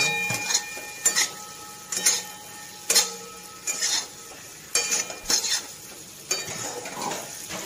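Metal spatula scraping and knocking against a metal kadai as boiled eggs are turned through thick curry masala. There are about ten irregular strokes, some leaving the pan ringing briefly, over a faint sizzle of the masala frying in oil.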